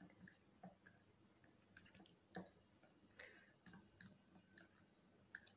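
Near silence with faint, scattered small clicks as orange food colouring is mixed by hand into sticky, syrup-soaked watermelon-rind cubes in a ceramic bowl. The clearest click comes a little past two seconds in.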